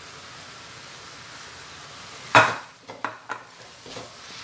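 Coconut-milk adobo sauce sizzling steadily in a wok while a utensil scoops cooked chicken livers out. A little past halfway comes one loud clack of utensil on cookware, then a few lighter clicks and scrapes.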